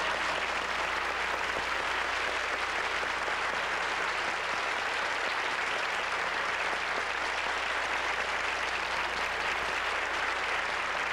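Audience applauding with steady clapping.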